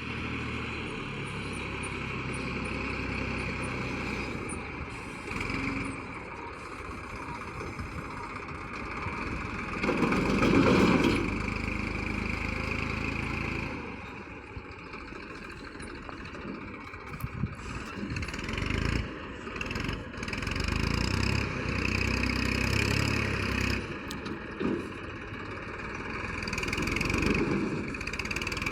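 Vehicle engine running continuously, growing louder and softer in spells.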